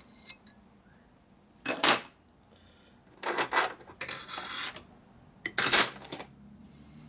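Metal hand tools clinking and clattering on a steel workbench: a sharp ringing clink a little under two seconds in, then three more separate scrapes and knocks.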